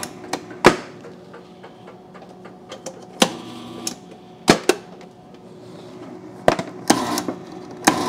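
Frigidaire side-by-side refrigerator's cube/crush ice solenoid and plunger arm cycling: sharp, irregularly spaced clicks and clacks, several in quick pairs, over a steady low hum.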